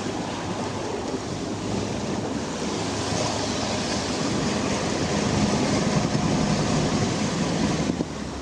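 A steady rushing noise, wind or water on the microphone, louder from about three seconds in until near the end, with the low steady note of a distant Sherp amphibious ATV's engine underneath.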